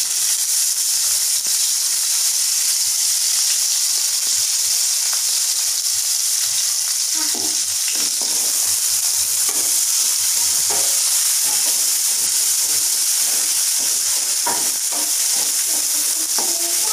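Sliced onions sizzling steadily in hot mustard oil in a nonstick pan, just after going in, with a wooden spatula stirring and scraping the pan now and then from about halfway through.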